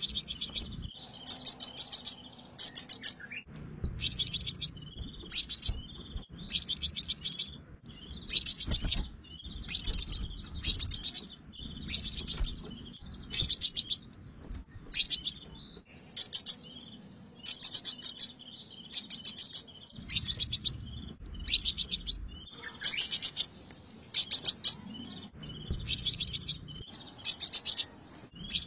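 A sunbird singing over and over in short, rapid, high-pitched trills and chirps, with brief pauses between phrases.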